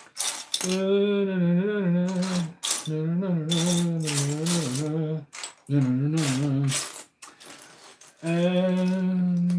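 A person humming a tune in four held phrases with short pauses between them. Loose LEGO bricks click and clatter as a hand sifts through a pile of them.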